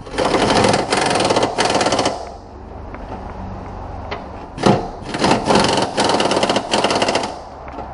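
A power wrench hammering on bolts in the engine bay in two bursts of a few seconds each. The second burst starts about four and a half seconds in.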